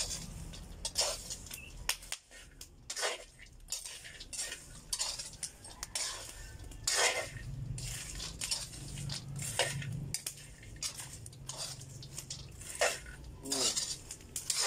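Metal spoon scraping and clinking against a metal wok as cacao seeds are stirred while dry-roasting over a wood fire. The strokes are irregular, a dozen or so.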